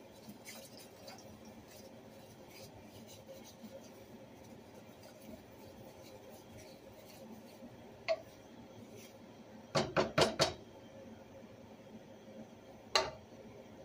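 Stainless-steel wok clanking as it is handled on the stove with a wooden spoon: a single knock about eight seconds in, a quick run of four sharp clanks around ten seconds, and one more near the end, over a faint steady background.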